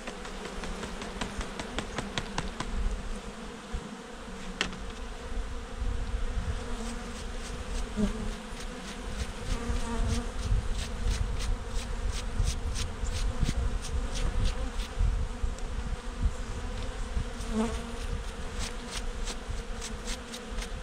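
Honeybees humming steadily over an open hive. From about seven seconds in there is a run of light, irregular clicks and scratches as a bee brush is swept over a comb frame to clear the bees off it.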